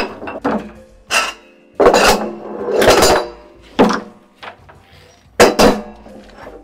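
A series of sharp metal clanks and knocks as the steel parts of a hydraulic seal-expanding tool are taken off and handled inside the pipe, with a pair of loud clanks near the end.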